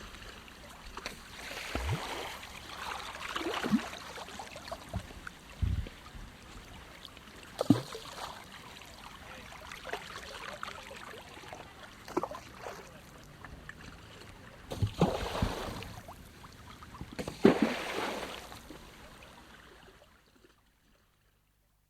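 Water sloshing and splashing from a person swimming, in uneven strokes with a few louder splashes, fading away near the end.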